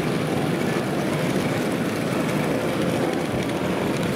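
Steady hubbub of a busy exhibition hall: many voices and general hall noise blended into an even din.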